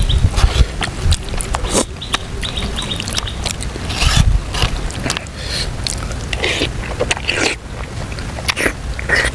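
Eating sounds from soft stewed pork: a spoon and fingers clicking and tearing at the meat, then chewing of a mouthful, with many short irregular clicks and smacks over a steady low rumble.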